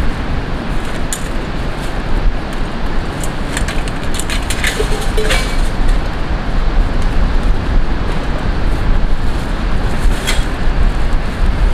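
Strong wind rumbling on the microphone as a steady noise, with a few short clicks and rattles about four to five seconds in and again near the end as a large beach parasol is tilted and turned.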